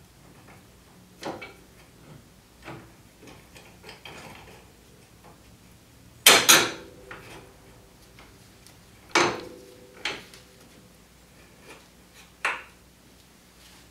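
Metal knocks and clanks of a bolt, washers and tools being worked as a UTV's suspension A-arm is fitted back into its mounts: scattered light clicks, a loud double clank about six seconds in, and single clanks at roughly nine, ten and twelve seconds, the larger ones ringing briefly.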